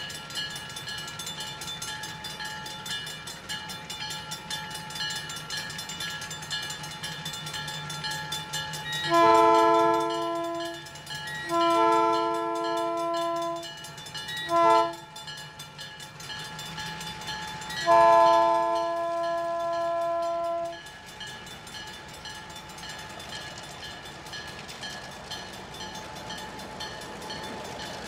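ALCO FPA-4 diesel locomotive's air horn sounding the grade-crossing signal about nine seconds in: two long blasts, one short, then one long. Beneath it the locomotive's diesel engine rumbles steadily as the train rolls slowly up, and a crossing bell rings.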